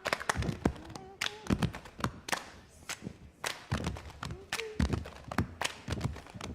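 Irregular series of sharp taps and knocks, a few a second, with brief voice sounds now and then.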